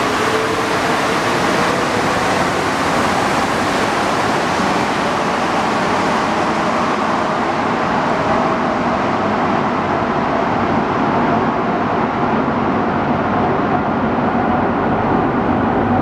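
Alstom rubber-tyred Santiago Metro train pulling out and running away into the tunnel. A steady rumble carries a faint whine that rises slowly in pitch as the train speeds up, and the sound grows duller in the second half as the train recedes.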